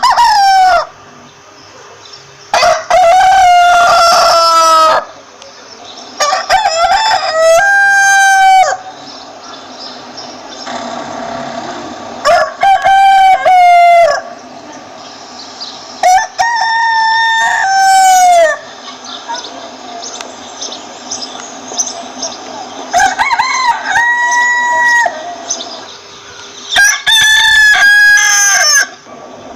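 Rooster crowing again and again: six long crows of about two seconds each, a few seconds apart, with quieter clucking between them.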